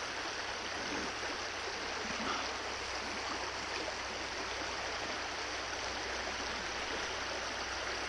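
Shallow trout stream rushing steadily over rocks in a riffle, an even unbroken babble of water.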